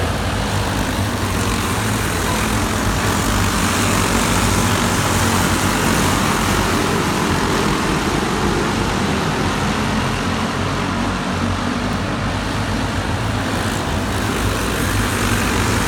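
Several racing go-kart engines running together at speed, a steady mixed engine noise with no single kart standing out.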